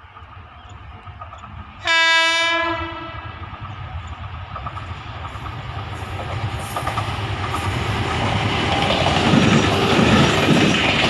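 Indian Railways WAP-7 electric locomotive sounding one short, loud air-horn blast about two seconds in. After it, the rumble and wheel clatter of the train passing through the station at about 60 km/h grow steadily louder.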